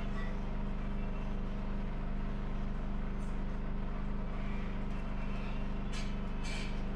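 Steady low machine hum, even and unchanging, with a few brief scraping strokes near the end as paint is worked onto the canvas.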